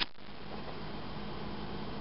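A disposable lighter struck once with a sharp click, followed by steady background hiss.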